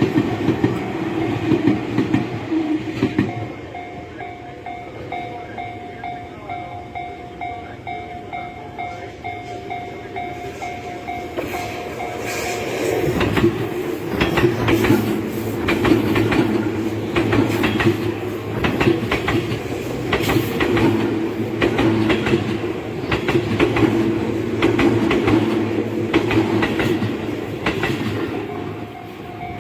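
Tobu Tojo Line trains at a level crossing. One train finishes passing in the first few seconds, then the crossing bell rings in steady repeated dings. About 13 s in a second train passes with loud, rhythmic clatter of wheels over rail joints, fading near the end as the bell is heard again.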